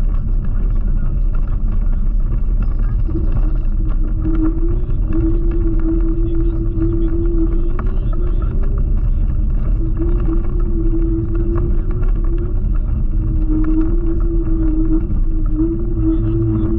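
Loud wind buffeting and tyre rumble from a moving electric scooter, heard at speed. A steady hum comes and goes over it several times.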